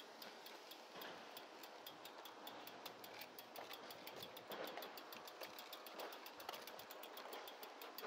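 Helix folding bike's rear freewheel hub ticking as the bike is wheeled along without pedalling: a quick, even run of light clicks, several a second.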